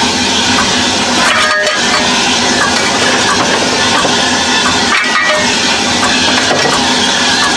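Fire burning hard in the open firebox of a 15-inch gauge steam locomotive, a replica SR&RL 2-6-2: a steady rushing of the draught through the fire, with scattered crackles and small clinks.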